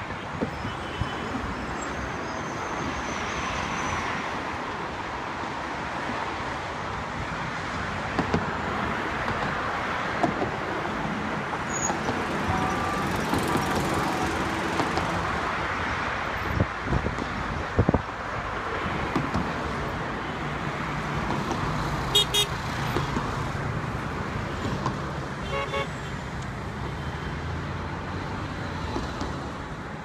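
Steady road-traffic noise from cars passing on a wide multi-lane city road, with a few short car-horn toots and a couple of sharp knocks about halfway through.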